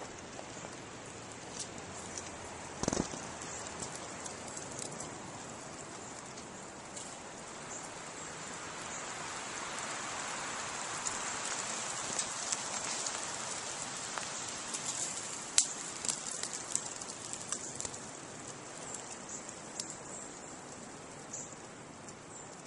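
Snow and meltwater dropping from snow-laden trees in a steady patter like rain, swelling a little in the middle, with a couple of sharper clicks about three seconds in and near sixteen seconds.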